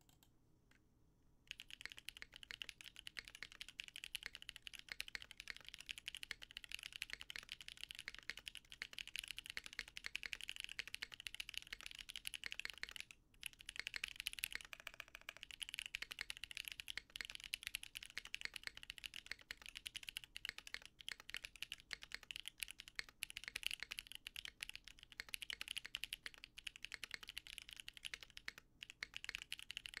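Continuous typing on a Midway 60 mechanical keyboard with lubed L&F Holy Panda tactile switches, a full polycarbonate plate, an O-ring sandwich mount and GMK doubleshot ABS keycaps, a dense run of keystroke clacks. The typing begins about a second and a half in, with a brief pause about halfway through.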